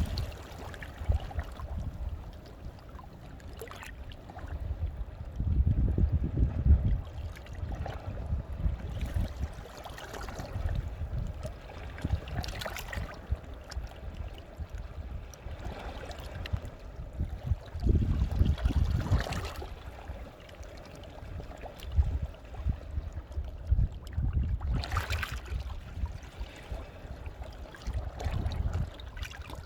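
Sea waves washing in over shoreline rocks, a surge every few seconds, with low rumbles rising and falling beneath them.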